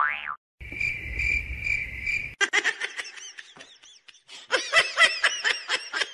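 A steady, high pulsing tone for about two seconds, then people laughing in rapid repeated bursts, louder near the end.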